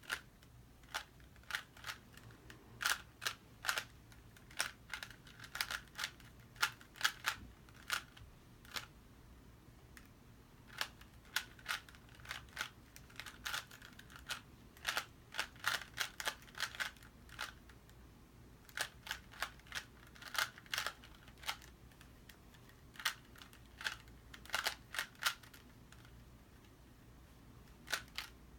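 Plastic Rubik's Cube being twisted by hand: runs of quick clicks as its layers turn, broken by short pauses between move sequences.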